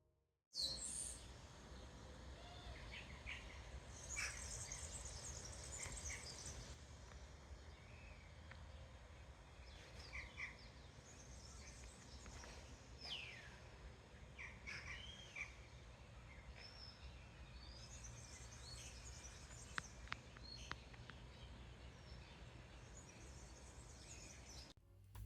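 Small birds chirping and trilling in short, scattered calls over a faint, steady low background rumble.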